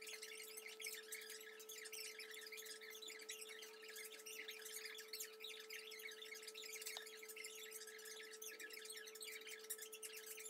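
Faint steady hum, one even tone, over a soft hiss: near-quiet room tone.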